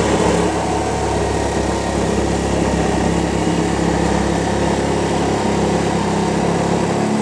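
Battery-powered power tool running steadily under load as it cuts out a section of wooden interior panelling.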